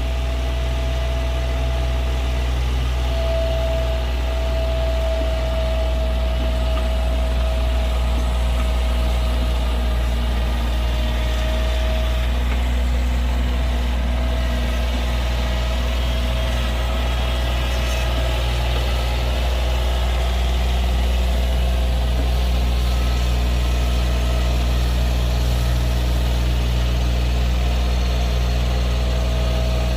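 An engine idling steadily, with a deep low hum and a thin steady whine above it.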